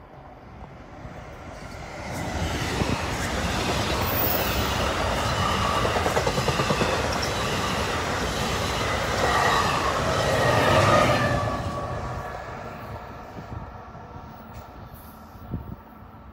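NJ Transit double-decker commuter train, hauled by an ALP-46 electric locomotive, passing close by: the rumble and rail noise build about two seconds in, are loudest around ten to eleven seconds, then fade as the train moves away.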